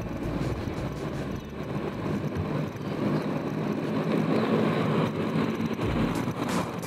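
Urethane inline-skate wheels (90 mm) rolling over coarse asphalt, a steady rolling noise.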